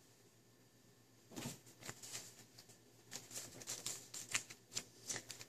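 A sheet of origami paper being folded and creased by hand, with a quick run of crinkles and taps starting about a second in.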